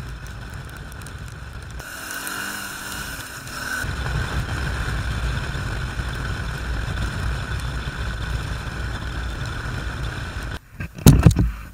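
Honda V-twin adventure motorcycle riding at speed: a steady engine rumble under wind and road noise at the helmet camera, louder from about four seconds in. Near the end the rumble breaks off and two sharp, loud knocks come in quick succession.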